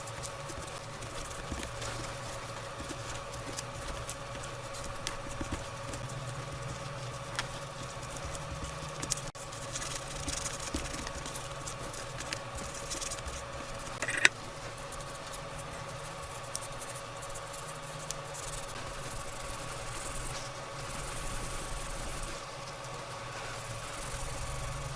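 Small scratching, rubbing and tapping sounds of old thermal paste being wiped and scraped off a laptop's processor and heatsink, over a steady electrical hum, with one sharp squeak about halfway through.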